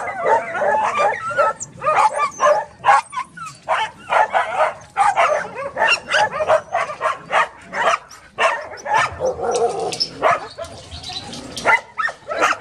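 A crowd of dogs barking over one another without a break, many barks a second.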